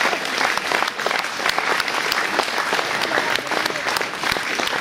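Audience applauding, dense steady clapping from a roomful of people.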